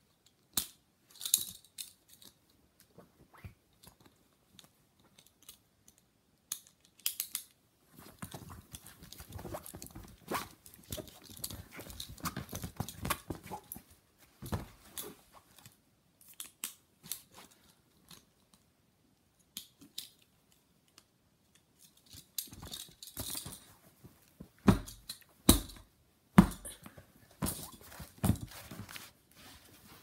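Handcuffs being handled and clicked shut around a plush toy snake: scattered metallic clicks and ratcheting, with soft fabric rustling of the plush against the couch. A run of sharp, loud clicks and knocks comes near the end.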